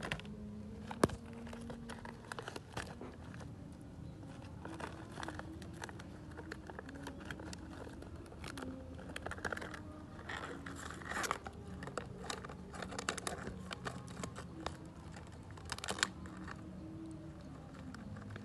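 A puppy chewing and pawing at a thin clear plastic cup: the plastic crinkles, clicks and scrapes in irregular bursts, with one sharp crack about a second in.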